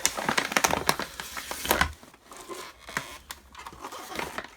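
Plastic packaging crinkling and rustling as it is handled, dense for about two seconds, then thinning to scattered crackles and clicks.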